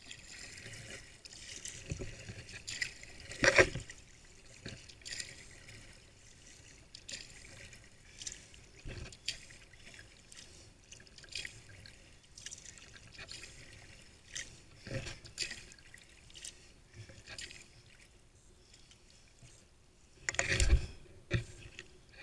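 Sea kayak paddling: water trickling and splashing off the paddle blades with each stroke, at an irregular pace. A few strokes are louder, the loudest about three and a half seconds in and another near the end.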